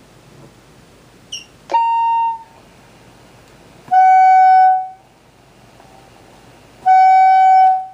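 Electronic beeps from a 1byone video doorbell system's speaker: a short high chirp, then a higher beep about two seconds in, then two longer, lower beeps about three seconds apart, each under a second and loud.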